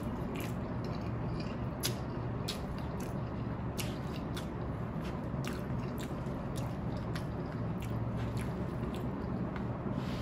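Close-miked mouth sounds of a man chewing a mouthful of cheese ramen noodles, with wet smacks and scattered small clicks, over a steady low hum.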